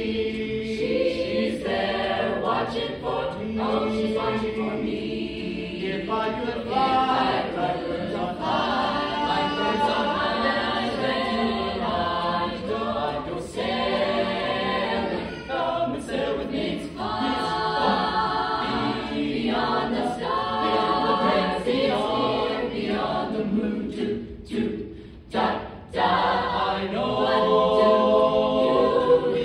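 Mixed-voice high school choir singing in parts, with a short break in the sound about three-quarters of the way through.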